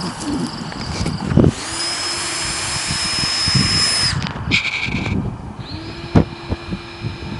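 Handheld power drill backing screws out of a plywood wall form. It runs as a steady whine for about two and a half seconds, gives a short burst, then starts another long run, with a few sharp knocks in between.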